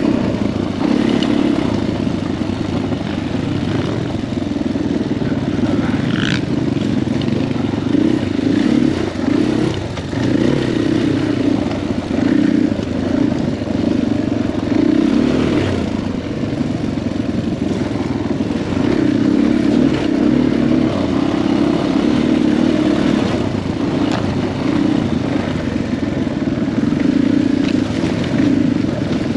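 KTM 500 EXC-F's single-cylinder four-stroke engine running as the bike is ridden, its pitch rising and falling as the throttle is worked, with a few short knocks.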